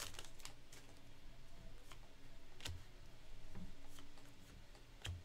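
A stack of trading cards being flipped through by hand: faint scattered clicks and soft taps as the cards slide over one another, with one sharper click near the end.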